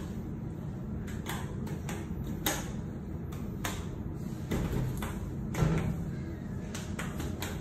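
Pushbuttons on an Otis ReGen lift's car panel clicking as they are pressed again and again, a dozen or so sharp clicks at uneven intervals over a low steady hum.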